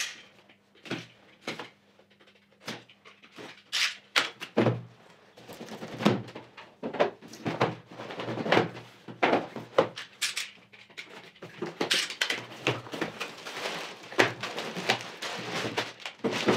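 A building-block set being unboxed: cardboard box handled and its lid pulled off, then sealed plastic bags of bricks lifted out and set down on the table. Irregular cardboard thunks and knocks at first, then dense crinkling and rustling of the plastic bags with clicks of bricks inside from about six seconds in.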